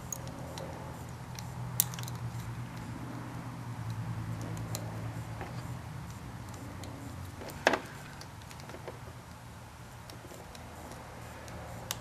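Small plastic handling sounds and sharp clicks as crimped wire terminals are pushed into a white plastic connector housing, with one click about two seconds in and a louder one past the middle. A low steady hum sits underneath until about halfway.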